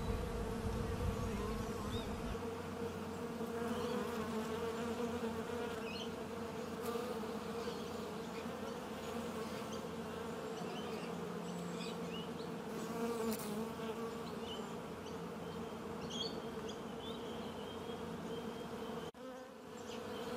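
Many honeybees flying at the hive entrances of a bee house, a steady, even buzzing hum. It drops out briefly near the end.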